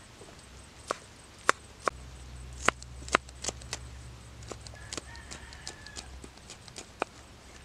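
Knife blade striking a wooden chopping board as peeled garlic cloves are sliced and chopped, in irregular sharp knocks.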